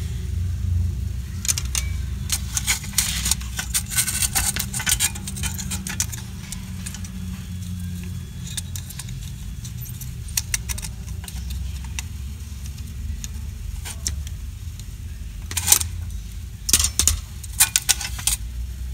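Clicks and light rattling as a CCTV power-supply circuit board and its small parts are handled and turned over while a blown capacitor is desoldered, in two busy spells, one in the first few seconds and one near the end. A steady low hum runs underneath.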